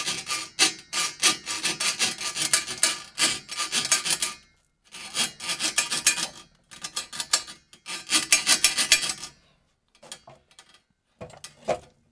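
Electric power drain auger running, its spinning steel cable rasping rapidly against the cleanout port and pipe as it is fed into a clogged drain line. It runs in two long stretches with a short break about four and a half seconds in, and a few scattered clicks follow near the end.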